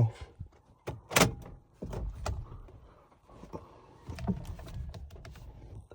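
A few scattered clicks and knocks inside a car, the sharpest about a second in, from the key being handled at the ignition during the key-programming ignition cycles.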